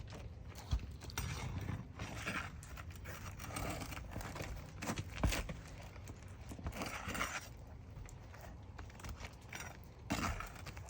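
Roofing pry bar knocking and scraping against roof shingles as they are unsealed and their nails pried out: an irregular string of knocks and clicks with stretches of scraping between them.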